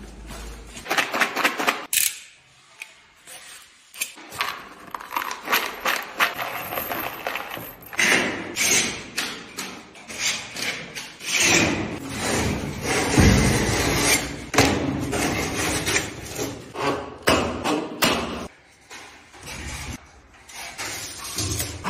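Drywall installation work sounds: irregular knocks, thuds and clatter as gypsum board and metal ceiling framing are handled and fixed, with two short lulls.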